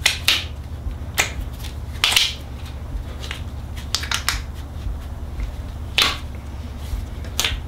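Rubber cue wrap being rolled by hand along the butt of a wooden pool cue, giving a few irregular sharp snaps and short rubbing sounds as the rubber grips and releases, over a steady low hum.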